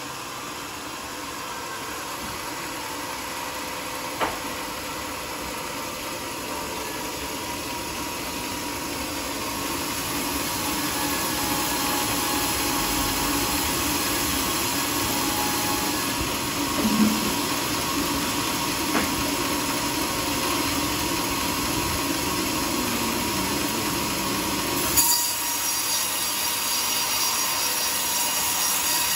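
Homemade band sawmill's blade cutting through a teak log: a steady running, grinding sound that grows louder over the first ten seconds or so, with a few short sharp knocks, and the sound changes abruptly near the end.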